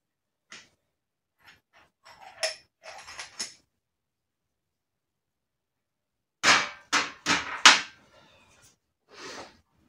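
Metal tools knocking against the aluminium crankcases of a 1991 Honda CR250R two-stroke engine being assembled: light scattered clicks in the first few seconds, then four sharp knocks in quick succession about two-thirds of the way in, and one softer knock near the end.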